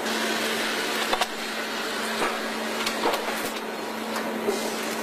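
Engine assembly-line machinery: a steady mechanical hiss and hum with a few sharp clicks and knocks about a second apart.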